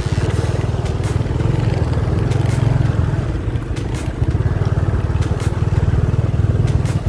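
Small motorcycle engine running steadily at low speed while ridden over a rough dirt road, with a few sharp clicks and rattles.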